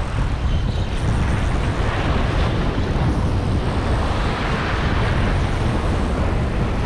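Wind buffeting the microphone over the steady wash of sea surf on the rocks.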